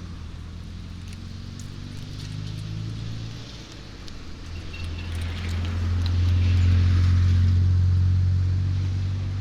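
Road traffic: a vehicle's low engine hum, dipping briefly about a third of the way in, then swelling to its loudest past the middle as a vehicle passes and easing off near the end, over a light haze of noise.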